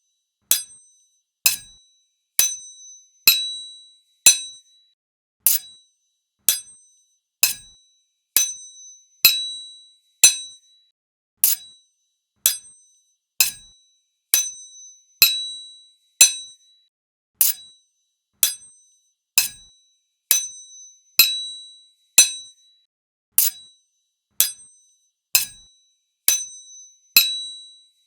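Sword blades striking each other again and again, about once a second, each clash a sharp hit with a brief high metallic ring.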